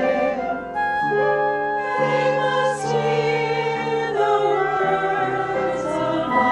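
Choir singing a slow hymn in held chords that shift every second or so.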